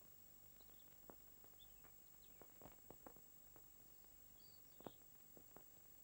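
Near silence: the faint steady hiss of an old film soundtrack, with scattered faint irregular ticks and a few faint high chirps.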